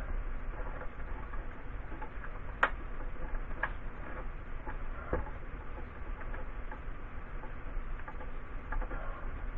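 Scattered light clicks and taps of hands working on electrical wiring, the sharpest about two and a half seconds in, over a steady low hum.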